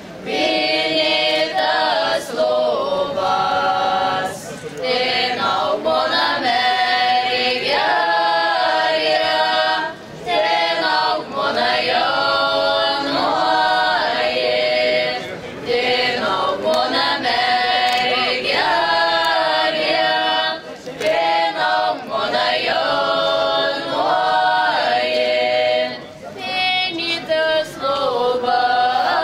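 Folk choir of mostly women's voices, with some men's, singing together in phrases broken by short pauses about every five seconds.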